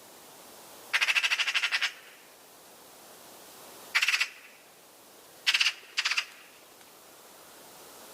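Magpie chattering: a rapid, harsh rattle of about a dozen notes in under a second, followed by three short harsh calls, the last two close together.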